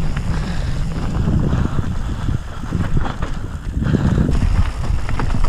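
Mountain bike descending a dirt forest trail: the tyres and frame rattle and clatter over the rough ground, and wind buffets the camera microphone with a continuous low rumble.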